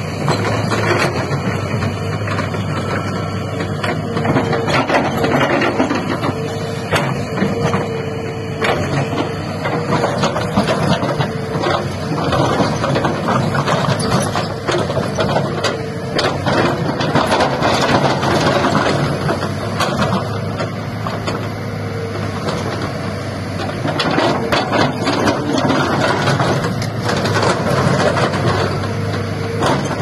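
Kobelco SK210 tracked excavator working: its diesel engine running steadily under load with a constant hum, while the bucket dumps and pushes soil on a heap, adding repeated knocks, clatters and the rush of falling earth.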